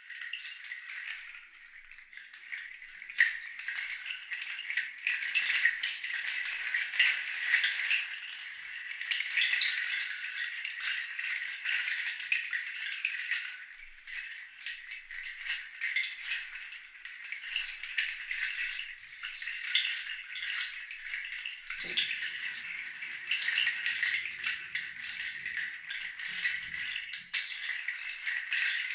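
A hand rattle or shaker played in a continuous, dense patter of fine seed-like clicks that swells and eases. A faint low tone joins for a few seconds in the last third.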